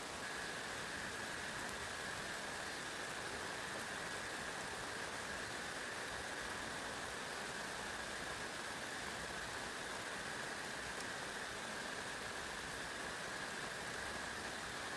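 Heavy rain falling steadily, with a faint, steady high-pitched tone running under it.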